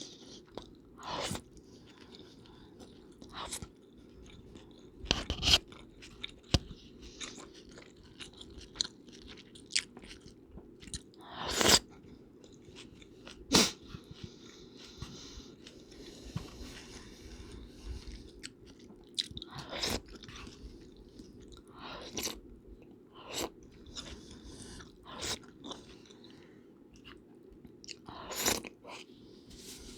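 A person eating chicken noodle soup close to the microphone: wet chewing and mouth sounds, with a handful of louder, sharp eating noises spread through, over a steady low hum.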